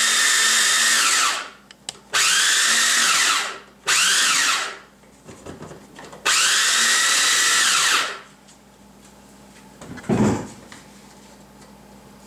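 Small electric food chopper grinding fresh garlic cloves, its motor run in pulses: a run that stops about a second in, then three more short bursts, each whining up to speed and winding down, the last and longest ending about eight seconds in. A single thump follows near the end.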